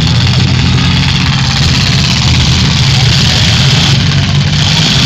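Demolition derby cars' engines running loud and steady together, with a dense low engine sound under a broad noisy wash.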